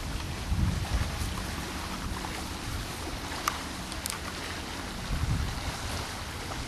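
Wind on the camera's microphone: a steady hiss with two stronger low gusts, one about half a second in and another about five seconds in.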